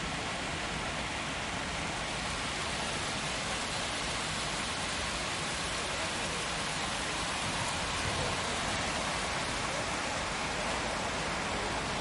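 Falling water from an artificial waterfall pouring into a marble basin: a steady, unbroken splashing hiss.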